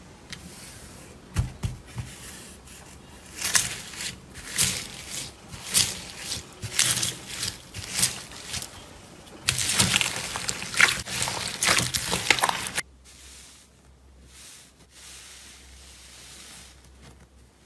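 A hand pressing and squishing a tub of clear green slime, giving a dense run of wet crackles, pops and squelches. About thirteen seconds in, this gives way to softer, quieter pressing of a fluffy pink cotton-cake slime.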